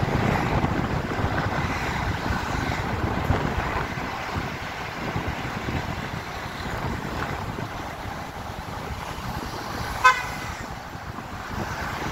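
Steady noise of a car driving slowly, with one short car horn toot about ten seconds in.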